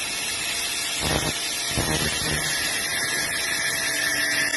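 Angle grinder running, its cutting disc grinding through metal and throwing sparks. A steady motor whine carries under harsh grinding noise that grows harsher from about a second in.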